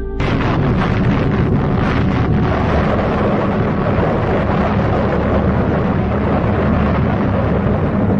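Loud, steady rushing rumble that starts abruptly a moment in, cutting off the music.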